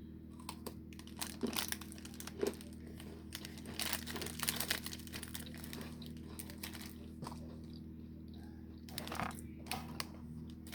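Plastic snack wrapper crinkling and tearing as a packaged barley biscuit is opened and handled, in irregular bursts of crackling with crunching, over a low steady hum.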